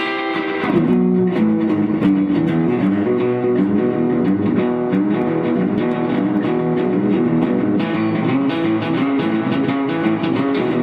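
Rickenbacker-style electric guitar played solo: a ringing chord, then from about a second in a quick, repeating riff of low notes.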